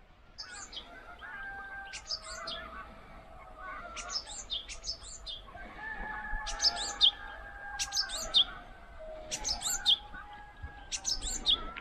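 Birds chirping: short, high calls repeated one or two times a second.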